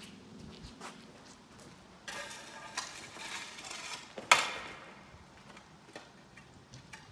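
Footsteps crunching and rustling over burnt rubble for about two seconds, ending in one sharp knock, with a few faint ticks before and after.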